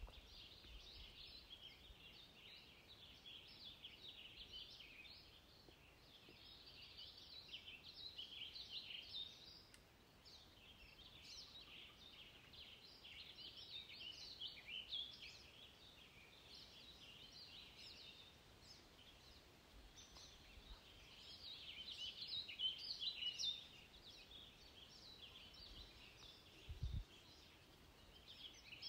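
Faint chorus of small birds chirping: many quick, high chirps overlapping without a break. A brief low thump sounds near the end.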